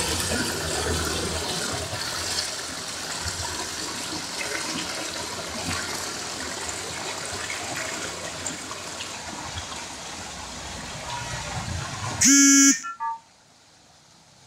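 Small stream rushing steadily over rocks. About twelve seconds in, a short loud horn-like tone, followed by a couple of brief beeps, then near silence.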